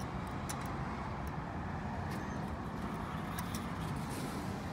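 Steady low outdoor background rumble of vehicle traffic, with a few light clicks scattered through it.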